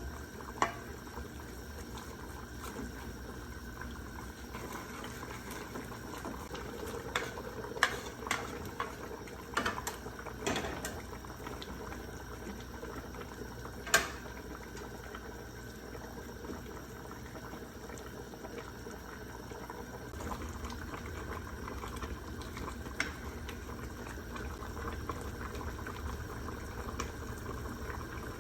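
Pot of sinigang soup boiling steadily, with a few sharp knocks scattered through it, the loudest about halfway.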